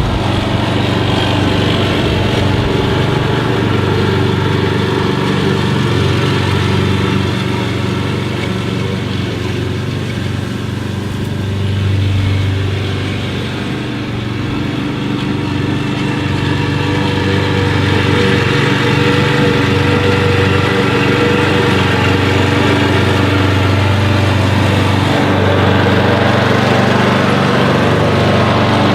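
A motor engine running steadily, dipping a little in level around the middle and running slightly louder through the second half.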